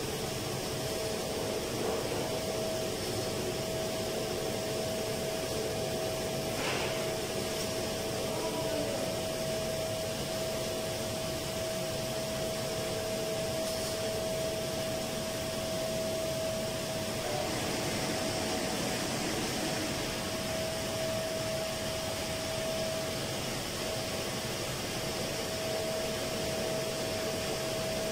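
Steady noise of running machinery, an even rush of air with a constant mid-pitched whine over it, and one brief knock about seven seconds in.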